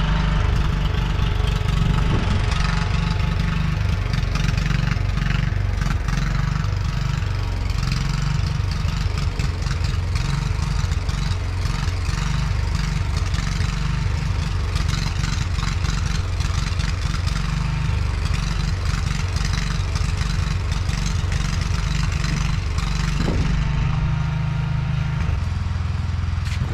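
Engine of a 1971 John Deere 140 H1 riding lawn mower running steadily, its note shifting near the end.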